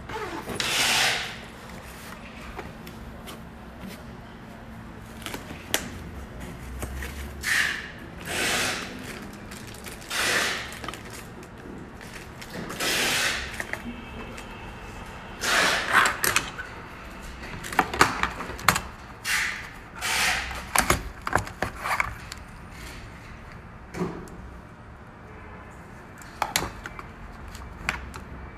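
Plastic and metal car trim-removal tools being handled and worked, making irregular scrapes, rubs and sharp clicks, with a busier cluster of clicks in the second half.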